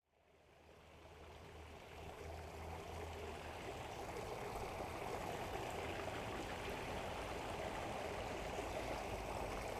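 Shallow creek water running: a steady rushing that fades in over the first two or three seconds, then holds.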